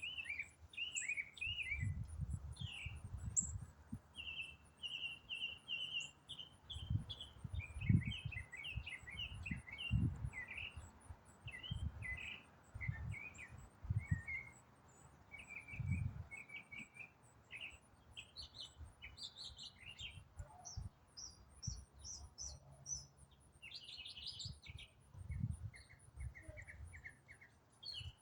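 A songbird singing a long, varied song of quick chirps, slurs and trills with hardly a pause, like a mockingbird's jumbled medley. Irregular low thuds hit the microphone now and then and are the loudest sounds.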